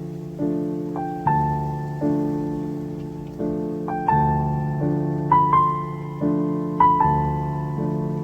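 Background music: slow piano playing sustained chords with a simple melody on top, a new note or chord struck about once a second and left to ring and fade.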